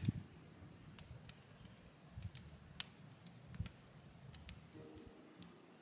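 Faint, scattered crackles and pops of a wood fire burning inside a steel barrel stove. Soft music comes in near the end.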